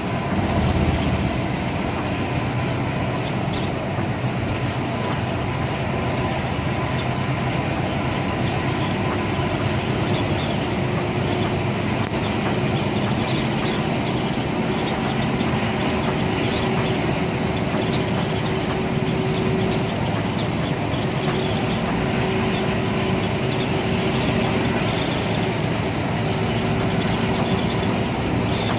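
Steady engine drone and road noise heard inside a coach driving along a highway.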